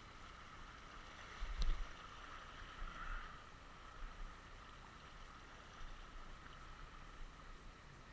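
River current flowing steadily over a rocky bed and swirling around wading legs, a faint, even rush of water. A few low thumps on the microphone, the loudest about a second and a half in.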